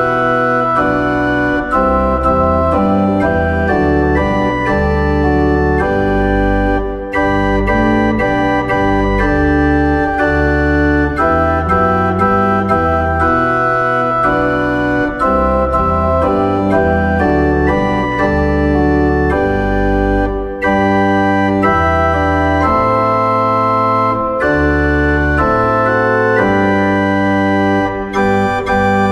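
Instrumental backing track of a hymn with no singing: held, organ-like keyboard chords that change every second or so over a moving bass line.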